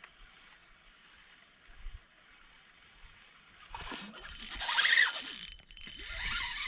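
Water splashing and sloshing at the lake surface while a spinning-reel retrieve is under way, starting about three and a half seconds in, loudest around five seconds, then rising again before it cuts off.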